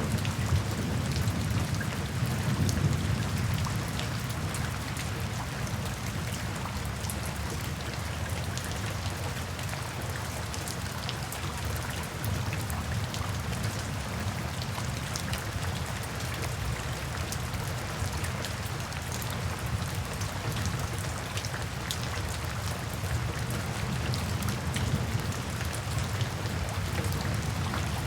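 Steady heavy rain with individual drops ticking, under a low rumble of distant thunder that swells in the first few seconds and again near the end.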